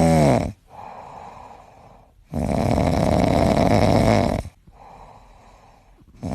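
Strange noise from a Suzuki Futura van as soon as the ignition is switched on. It comes and goes in loud stretches of about two seconds, roughly every four seconds, with a quieter noise between. The owner does not know what causes it.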